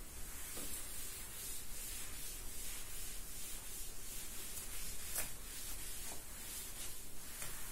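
Cloth duster wiping a chalkboard: repeated rubbing strokes across the board's surface, with a couple of sharper ticks about five seconds in and near the end.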